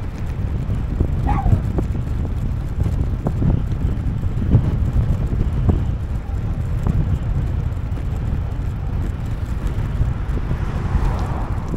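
Wind buffeting the microphone of a bicycle-mounted camera while riding, a steady uneven low rumble. A vehicle passes by near the end.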